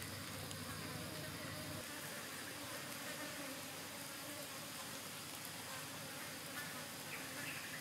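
Insects buzzing over a steady outdoor hiss, with a low buzz that thins out about two seconds in.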